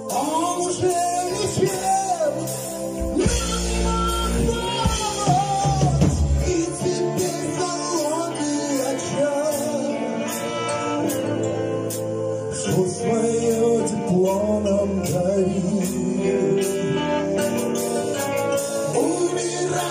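Live rock band playing: a male voice singing lead over bass guitar, electric guitar, keyboards and drums, with the bass heaviest a few seconds in.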